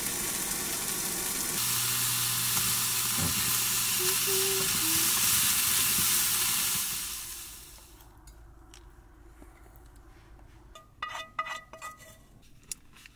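Chicken sizzling and frying in a pan, a steady hiss that fades out about eight seconds in, leaving only a few faint clinks.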